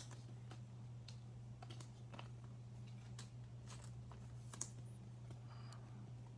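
Trading cards being handled and flicked through by hand: scattered light clicks and taps, over a faint steady low hum.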